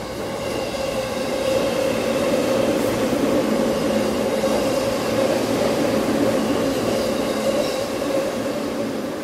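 Electric commuter train running into the station alongside the platform: a steady rumble and rush of wheels on rails with a steady hum, growing louder over the first second or two and easing off near the end.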